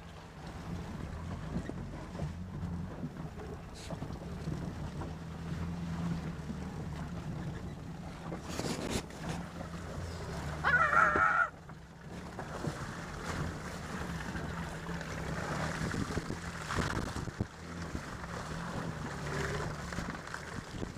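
Military jeep engine running steadily at low speed, heard from inside the cab, with knocks and rattles as the vehicle jolts over a rough track. About eleven seconds in, a loud, wavering high-pitched sound lasts under a second.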